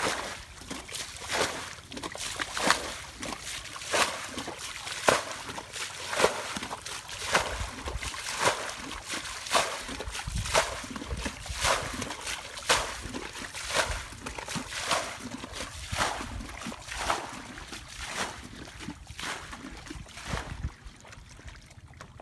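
A bucket bailing water out of a shallow, muddy paddy pool to drain it for catching fish by hand. Each bucketful is scooped and thrown out with a splash, about once a second.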